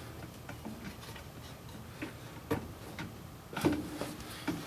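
Scattered light clicks and knocks of plastic washing-machine agitator parts being handled and fitted into place, the two strongest about two and a half and three and a half seconds in.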